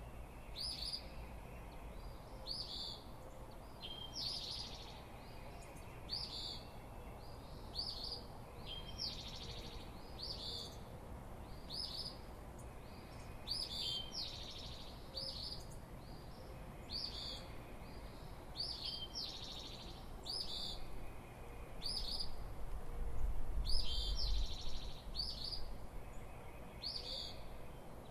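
A songbird repeating a short, high chirp about once a second, over a light breeze that swells into a low wind rumble about 23 seconds in.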